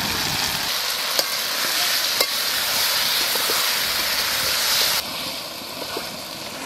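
Spiced duck meat sizzling as it is fried down (kasha) in mustard oil in a wide metal kadai, with a couple of sharp clicks. The sizzle drops off suddenly about five seconds in.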